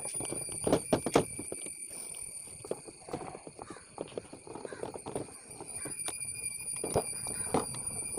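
Irregular knocks and clicks of hand tools working on the metal parts of a two-stroke chainsaw engine being taken apart, with a couple of sharper knocks about a second in.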